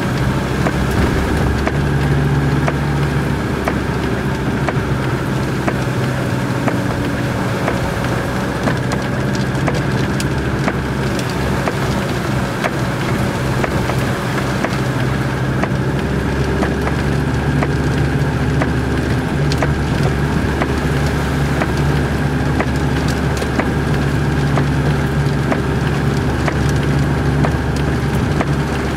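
Heavy rain drumming and pattering on a car's roof and windscreen, heard from inside the car, over the steady hum of its engine as it drives along a flooded road.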